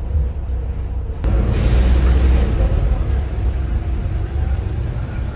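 Volvo B7RLE single-decker bus heard from inside the saloon: the six-cylinder diesel engine and road noise as a steady low rumble. About a second in, a sudden louder rush of hissing noise comes in and stays.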